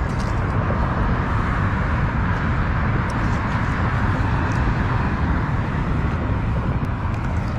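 A steady rushing noise with a low rumble. Over it come a few faint, short splashes from a hooked crappie thrashing at the surface as it is drawn to the bank.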